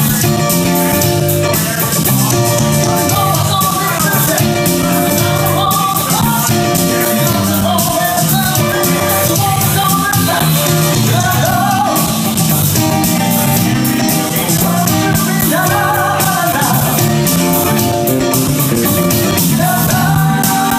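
Live band playing an upbeat Latin-flavoured rock song: electric guitar, electric bass and a Pearl drum kit, with a woman's lead vocal and a clarinet taking a melody in the middle.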